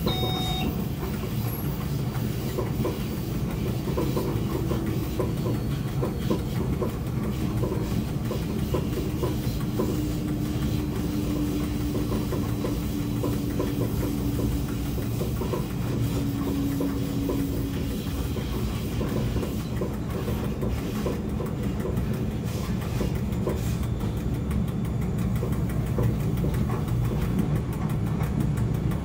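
SBB Re 420 (Re 4/4 II) electric locomotive running at speed, heard from its cab: a steady rumble of wheels on the track, with a faint slowly falling whine partway through.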